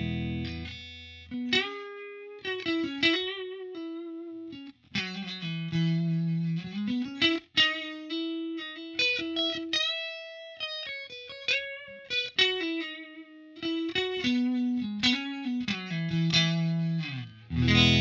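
Suhr Classic Pro electric guitar played with a clean tone through a Line 6 POD HD500. A strummed chord rings out and fades at the start, then a slow single-note melody runs with some notes held and shaken with vibrato, and another full chord is struck near the end.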